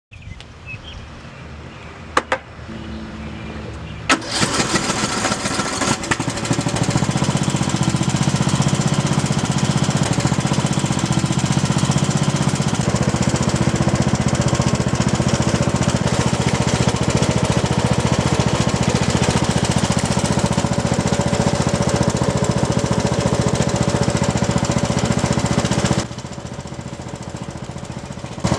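Riding lawn mower's engine starting about four seconds in after two sharp clicks, then running steadily and loudly with a rattling note. It drops to a quieter level about two seconds before the end.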